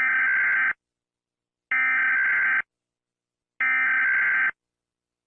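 Emergency Alert System SAME header: three bursts of buzzing, warbling data tones, each just under a second long and about a second apart. This digital code opens an emergency alert broadcast.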